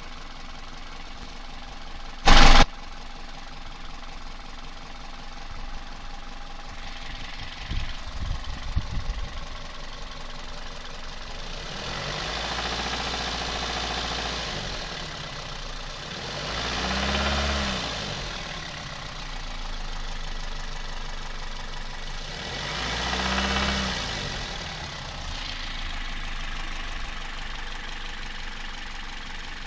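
Toyota 1ZZ-FE 1.8-litre four-cylinder engine idling with a knock, blipped up in revs three times and falling back to idle. A short, loud sharp sound comes about two seconds in, and a cluster of low thuds follows later on.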